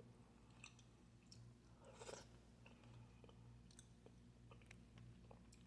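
Faint chewing of a crispy, salty snack: scattered small crunches, with a short cluster about two seconds in.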